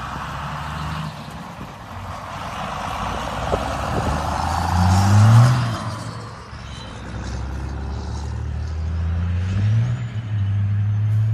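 Diesel engine of a lowered vintage pickup accelerating past. It revs up to its loudest about five seconds in, falls back, then revs up again near the end as the truck pulls away trailing black smoke.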